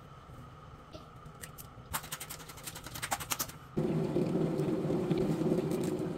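An aluminium foil tray and its foil lid being handled: quick crinkles and clicks, then a louder rough rustle from about four seconds in.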